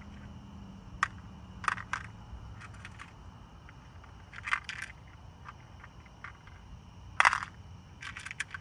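Irregular crunching sounds, a handful of short crunches and rustles with the loudest about seven seconds in, over a faint steady low hum.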